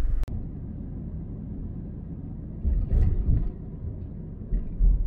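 Low rumble of a car being driven, heard from inside the cabin, with heavier low thumps about three seconds in and again near the end.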